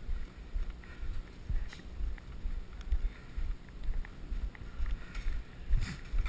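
Footsteps walking at a steady pace, about two steps a second, each a low thud, over a low rumble.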